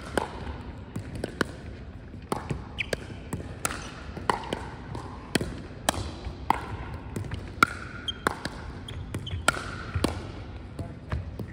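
Pickleball rally: sharp, irregular pops of paddles striking a plastic pickleball, sometimes several in quick succession, mixed with the ball bouncing on a hardwood gym floor and short squeaks of sneakers on the wood.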